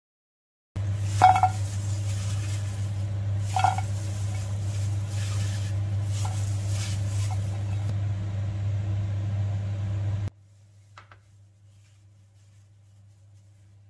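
A steady low hum with rustling and two sharp clinks as cut bell pepper pieces are handled into a nonstick frying pan. The sound stops abruptly about ten seconds in, leaving only a faint hum.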